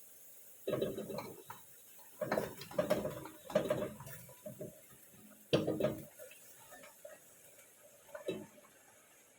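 Intermittent knocks and clatter of kitchen utensils and dishes being handled, in a few short clusters with pauses between.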